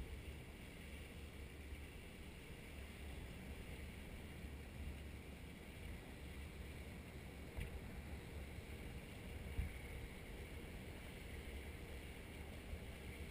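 Faint, steady wind rumble on an action camera riding high under a parasail, with a couple of small knocks partway through.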